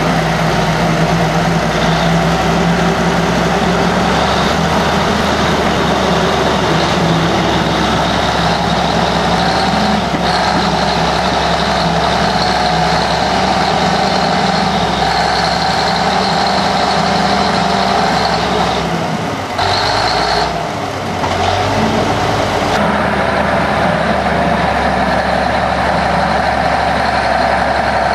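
Heavy engine running steadily, with a brief drop in level about twenty seconds in.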